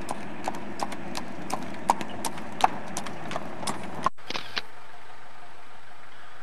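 A horse's hooves clip-clopping on asphalt at a trot as it pulls a wooden cart, about three hoofbeats a second. The hoofbeats cut off about four seconds in, giving way to a steady noise.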